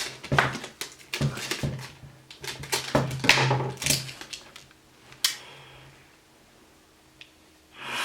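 Close-up crackling, clicks and rustling from sticky tape being handled and wrapped to join a draw cord to a wire coat hanger, in a run of bursts over the first four seconds or so, then it goes quiet with one more short rustle near the end.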